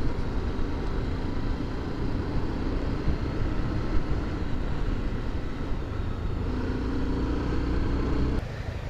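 Honda motorcycle's engine running at road speed under the rider, with wind rumble on the microphone. The sound drops suddenly near the end.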